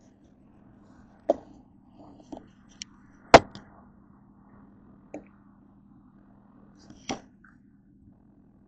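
A series of about six sharp knocks as plastic dressing bottles and other items are set down on a countertop. The loudest comes a little over three seconds in, over a faint steady hum.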